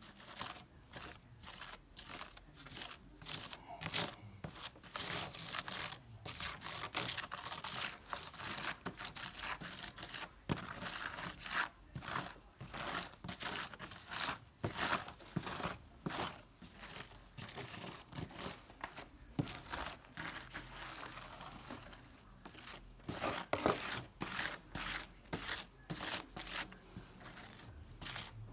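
Grout being scraped and pressed into the joints of a ceramic mosaic with a hand tool: repeated gritty scraping and rubbing strokes of the tool over the broken tile pieces, several a second and uneven.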